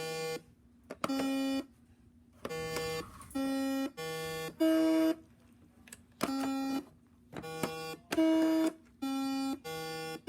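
Simon electronic memory game sounding a sequence of about ten steady half-second beeps at three or four different pitches, some back to back and some with short gaps between them.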